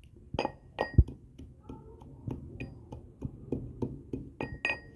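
A pestle clinking against a hard mortar, a quick irregular series of sharp ringing knocks, as roasted cumin and coriander seeds are pounded.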